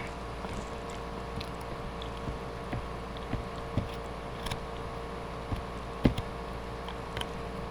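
Husky gnawing and chewing a rawhide chew: irregular short clicks and crunches, the loudest about six seconds in, over a steady background hum.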